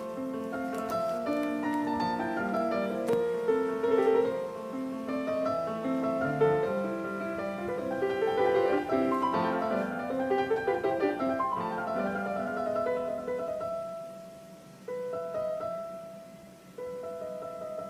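Piano music: a melody over held chords, briefly quieter near the end.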